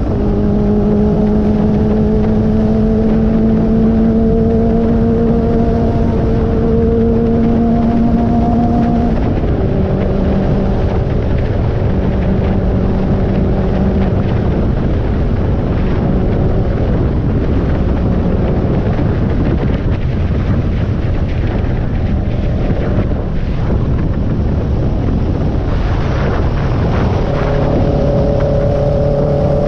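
1980 Honda CB750F's air-cooled inline-four running at highway cruise, its exhaust note steady and slowly rising, then dropping in pitch about nine seconds in and again near the end, over a heavy wind rush on the microphone.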